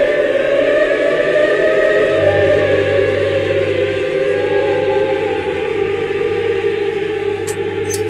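Choral music: sustained, slowly drifting voices, joined by a steady low drone about two seconds in.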